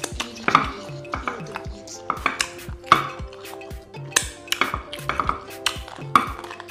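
Background music with a steady beat, over close eating sounds of food eaten by hand from a bowl: a few sharp clicks and scrapes, with chewing.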